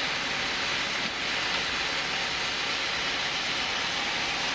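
Sawmill saw running with a steady, even hiss-like noise, no breaks or changes.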